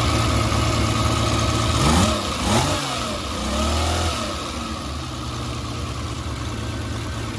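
Freshly rebuilt Ferrari 250 V12 engine running on a test stand during its break-in run. It is revved by hand at the carburettor throttle linkage a few times about two to four seconds in, then settles back to a steady idle.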